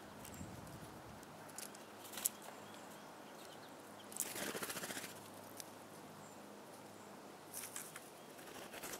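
Birds at a feeding branch: a few scattered sharp taps, and about four seconds in a short, rapid fluttering rattle, the loudest sound.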